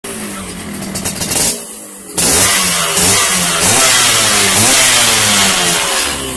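Yamaha RX-King two-stroke single-cylinder engine running through an aftermarket "standard racing" exhaust muffler. It runs steadily, dips briefly, then from about two seconds in it is revved repeatedly, the pitch rising and falling.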